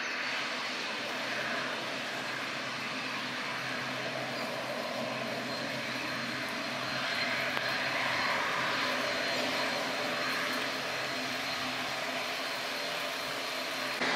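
ATR 72 twin turboprop engines running at taxi power, a steady engine noise with a thin high whine, growing a little louder about halfway through.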